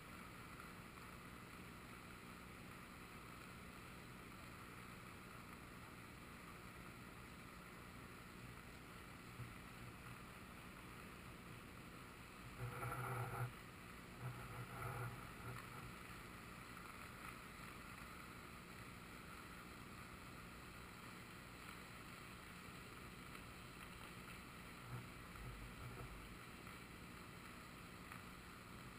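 Steady, faint rushing of a river in flood, with two short louder bursts about halfway through.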